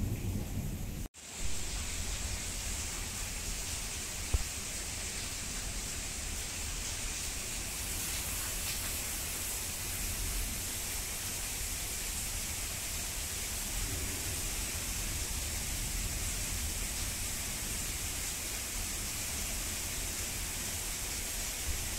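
Steady hiss of heavy rain during a thunderstorm. A low thunder rumble cuts off abruptly about a second in, and a single sharp click comes about four seconds in.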